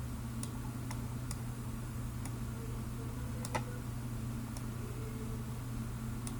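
Computer mouse clicking now and then, about eight sharp clicks at uneven intervals, the loudest a little past the middle, over a steady low electrical hum.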